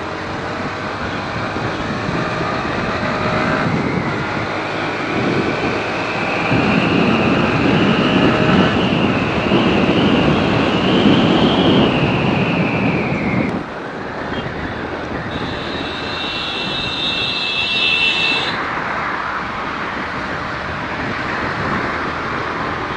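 Vehicle and road-traffic noise as heard while riding: a steady rush with a thin whine that slowly rises in pitch and then drops. It breaks off abruptly about two-thirds of the way through, and a high steady tone sounds for about three seconds after that.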